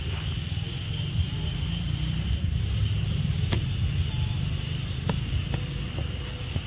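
Forest ambience: a steady low rumble on the handheld camera's microphone and a steady high drone of insects, with a few sharp clicks about halfway through and a second or so later.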